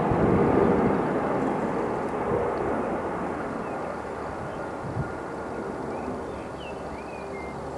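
Twin-engine jet airliner on final approach, heading away: a broad engine rumble and hiss, loudest in the first second, then slowly fading. A few faint high chirps near the end.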